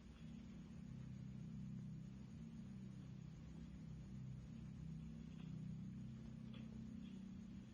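Faint, steady low hum, with a few soft clicks near the end.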